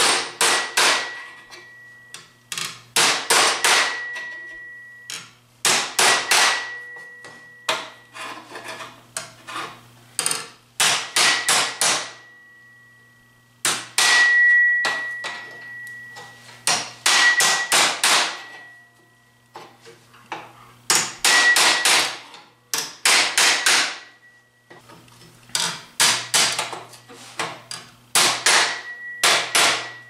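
Steel body hammer striking a sheet-steel patch panel clamped over a wooden and steel hammer form, bending its wheel-arch flange down over the buck. Bursts of several quick blows every couple of seconds, with the steel giving a thin ring that hangs on between bursts.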